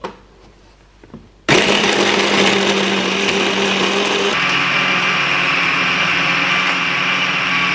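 Electric stick blender with a chopper-bowl attachment starting up suddenly about a second and a half in and running steadily, mincing raw chicken breast, shrimp, garlic and ginger. Its tone shifts slightly about four seconds in as the load changes.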